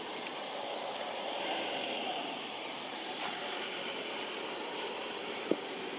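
Steady hiss of outdoor background noise, with one short click near the end.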